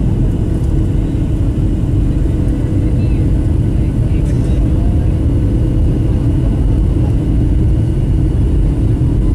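Cabin noise inside a Boeing 737-800 airliner in flight: a steady low rumble of its CFM56-7B engines and airflow, with a constant hum.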